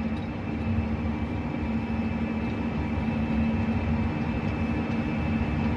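John Deere 8RX 410 tracked tractor driving on a road at about 43 km/h, heard from inside the cab: steady engine and running-gear drone at about 1,580 rpm, with a low rumble under a constant hum.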